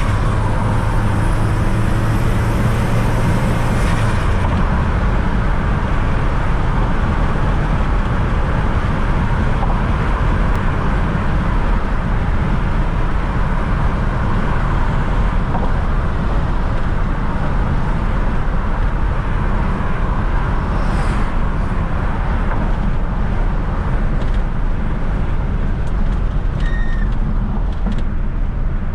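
1995 Fiat Coupe 2.0 16V Turbo's four-cylinder engine and tyres heard while driving, a steady run of engine and road noise. The low engine hum drops away about four seconds in, as when the throttle is lifted or a gear is changed.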